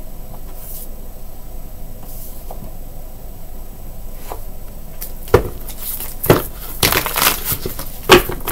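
Boxed tarot card decks being handled and pulled out of a row: after a quiet start, a few sharp knocks of card boxes clacking together, with rustling of cards in between.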